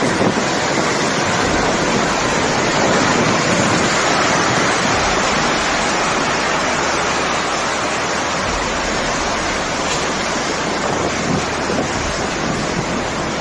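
Tornado winds rushing loudly and steadily, buffeting the microphone.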